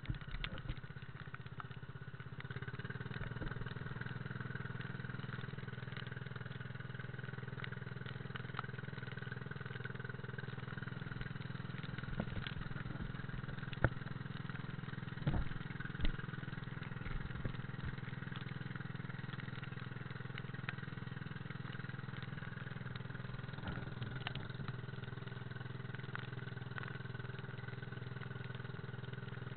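Engine of a small motorized outrigger boat running steadily under way, picking up slightly a couple of seconds in, with a few sharp knocks as the hull meets the chop.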